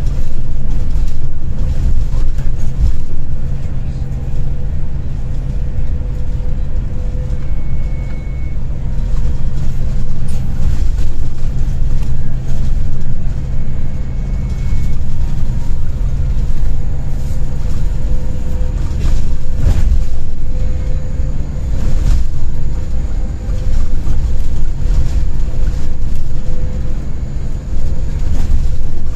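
Steady low rumble of a moving coach's engine and road noise, heard inside the passenger cabin, with a few brief rattles.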